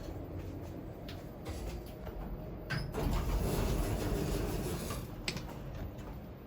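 Passenger lift running: a steady low rumble of the car in its shaft. About three seconds in a click is followed by a louder rushing noise lasting about two seconds, and a second sharp click comes a little after.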